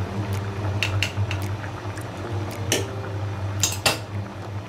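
A pot of coconut-milk stew bubbling at a steady boil, with a scatter of sharp metal clinks of a utensil against the pot, the loudest two about three and a half seconds in, over a steady low hum.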